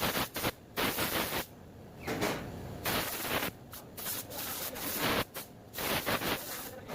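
Wood being cut or scraped in a string of noisy strokes, each broken off suddenly by a short pause.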